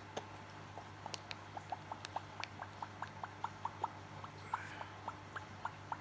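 African grey parrot clicking its beak as it nibbles at a person's hair: a run of small, sharp clicks, a few in the first second, then about three a second.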